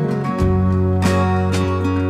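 Background music carried by a strummed acoustic guitar, with sustained chords and a fresh strum every half second or so.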